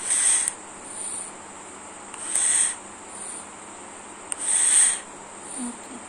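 An insect chirping in short high-pitched bursts, a loud chirp about every two and a half seconds with a fainter one in between.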